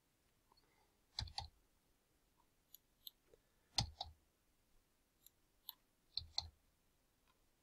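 Computer mouse and keyboard clicks: a handful of sharp clicks, some in quick pairs, spread out with quiet between them.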